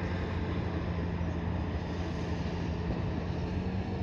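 A steady engine drone with a constant low hum and even noise over it, holding one speed without revving.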